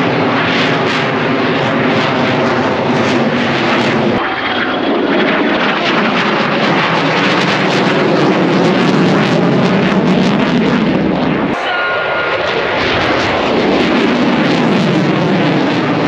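Jet noise from an F-22 Raptor's twin Pratt & Whitney F119 afterburning turbofans, a loud steady roar as it flies its display overhead. The sound changes abruptly twice, about four seconds in and again near twelve seconds.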